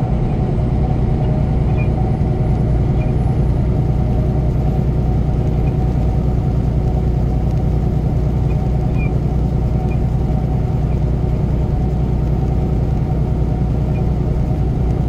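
Semi truck's diesel engine droning steadily with tyre and road noise at highway cruising speed, heard inside the cab.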